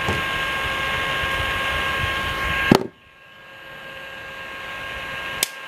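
Small DC motor spinning a vaned plastic rotor in a cup of water, a steady whine over a rushing noise. About three seconds in a click cuts the rushing noise sharply, and it slowly builds back while the whine carries on; another click comes near the end.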